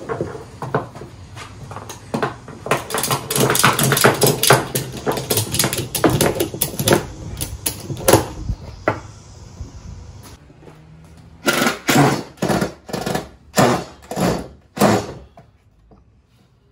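Ratchet strap being cranked tight around glued tabletop boards, its ratchet mechanism clicking rapidly in quick strokes for several seconds. After a pause, a string of about seven short, separate bursts follows near the end.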